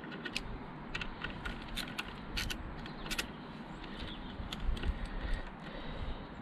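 Irregular light metallic clicks and clinks of hand tools, a socket wrench on a bolt and an earth tag, with a low rumble in the second half.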